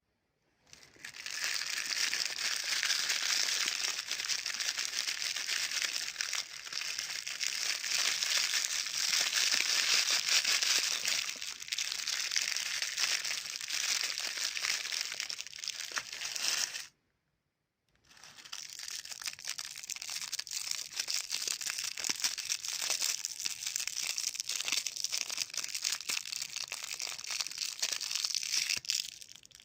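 Plastic candy wrapper crinkling and crackling as it is handled, with a cut to dead silence about 17 seconds in before the crinkling starts again.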